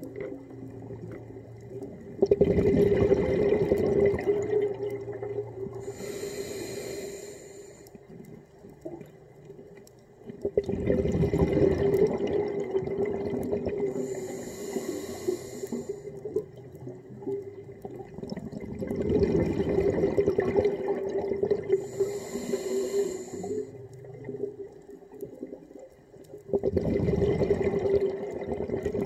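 A diver breathing underwater through a regulator: a short hissing inhale, then a longer rush of exhaled bubbles, about every eight seconds, four exhalations in all. A steady low hum runs beneath.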